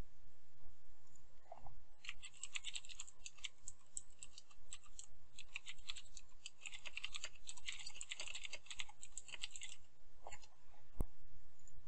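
Computer keyboard typing: a quick run of keystrokes starting about two seconds in and stopping near ten seconds, then a single sharp click near the end, over a low steady hum.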